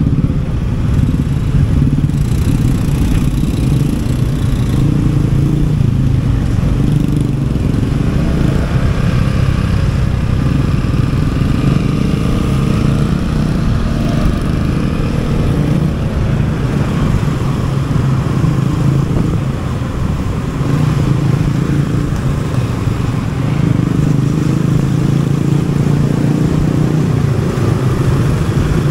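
Motorcycle running at riding speed, its engine a steady low note that carries on without a break.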